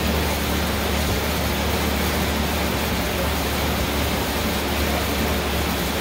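Fan of an exercise air bike whooshing steadily as it is pedalled and pushed hard, with a low hum underneath.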